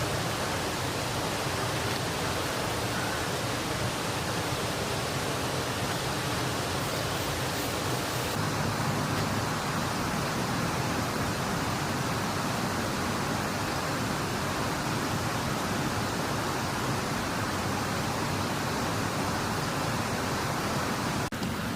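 Water rushing steadily over an irrigation weir, an even, unbroken roar of falling water with a slight change in tone about eight seconds in.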